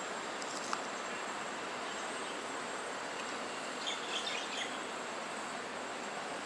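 Steady outdoor background noise, with a few short bird chirps about four seconds in.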